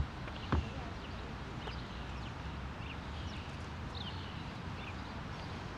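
Small birds chirping in short calls scattered over a steady outdoor background noise. A single sharp knock about half a second in is the loudest sound.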